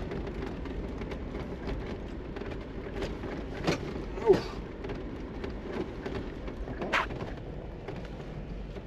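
In-cabin noise of a Mercedes G500 V8 driving slowly over a bumpy dirt track: a steady low engine and tyre drone, with a few short knocks and rattles as the body jolts over the ruts.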